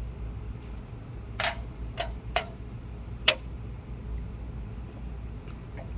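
Four short, sharp clicks, unevenly spaced over about two seconds with the last the loudest, over a steady low rumble.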